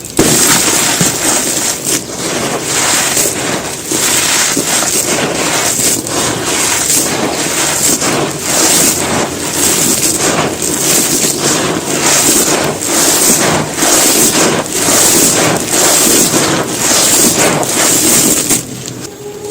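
Dry, gritty handmade cement being crumbled and crushed: a dense, continuous crunching made of many small sharp cracks. It dies down shortly before the end.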